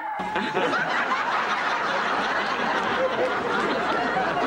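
Laughter and chuckling, dense and continuous.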